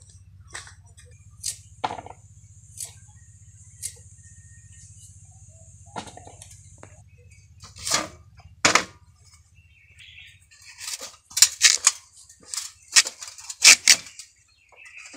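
Giant taro (maan kochu) corm being cut on a boti, the blade biting through the tough corm in sharp crunching cuts. A few cuts come spaced out at first, then a quick run of cuts near the end.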